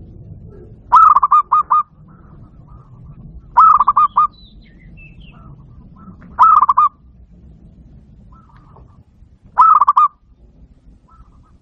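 Zebra dove (perkutut) singing: four short phrases of quick staccato coos, about every three seconds.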